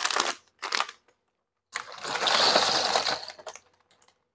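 Bugles corn snacks poured from their crinkly plastic bag into a brown paper sack. A few short crackles of the bag come first, then a dense rattling rush of the crisp snacks tumbling against the paper for about two seconds.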